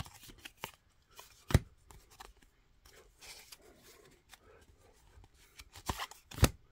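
Sports trading cards being flipped through by hand: cards slide and rustle off the stack, with a few sharp clicks and snaps, the loudest about a second and a half in and two more near the end.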